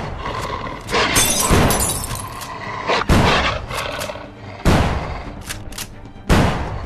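Gunshots in a film soundtrack: about five heavy shots at irregular intervals of one to two seconds, each with a short echoing tail, over a music score.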